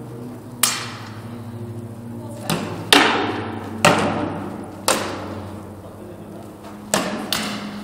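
Blunted steel swords striking wooden round shields and each other in sparring: seven sharp blows, irregularly spaced, each ringing and echoing in the large hall.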